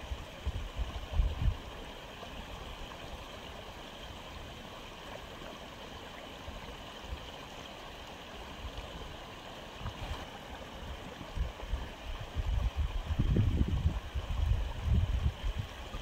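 Aquarium filter running: a steady trickle and gurgle of water. Bouts of low rumbling come in about a second in and again through the last few seconds.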